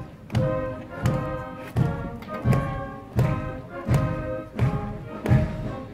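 Band music playing a march, with a low drum thump on each beat about every 0.7 seconds under sustained melody notes.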